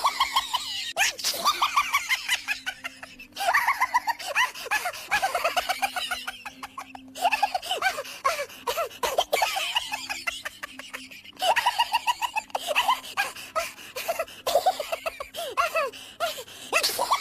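High-pitched laughter in several bouts of quick falling syllables, separated by short breaks, over a steady low tone.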